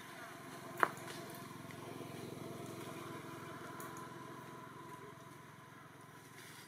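A motor engine running, growing louder over the first few seconds and then fading away, like a vehicle passing by. A single sharp click sounds just under a second in.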